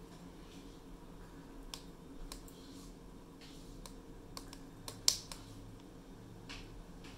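Hario TCA-3 syphon coffee maker brewing over its alcohol burner: scattered soft clicks and pops from the glass vessel as vapour bubbles up into the upper chamber, with one sharper click about five seconds in.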